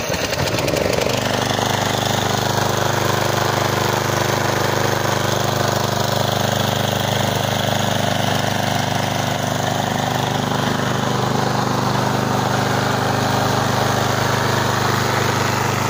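Briggs & Stratton 6 hp single-cylinder engine of a Wolf-Garten Cart ride-on mower, just started and settling into a steady, even run about a second in.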